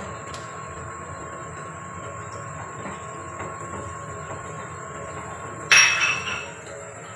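Large pot of tom yam broth at a rolling boil, bubbling steadily. A couple of light clicks near the start, and a sharp clink that rings briefly near the end.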